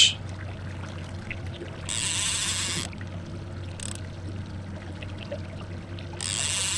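Boat motor running at trolling speed with a steady low hum. Over it come two hissing rushes about a second long, one about two seconds in and one near the end.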